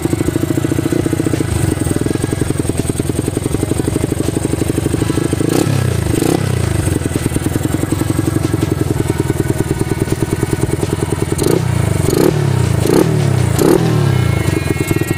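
A restored Yamaha Jupiter MX's single-cylinder four-stroke engine idling with an even pulse. The throttle is blipped twice about six seconds in, then several times in quick succession near the end, the revs rising and falling back to idle each time.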